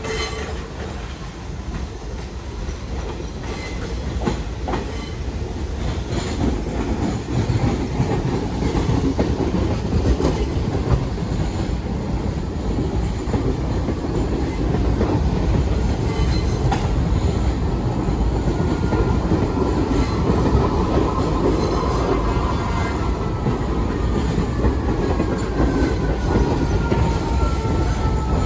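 New York City subway train running along the rails, its wheels clacking and rumbling, growing louder over the first several seconds and then holding steady. Near the end a whine slides down in pitch.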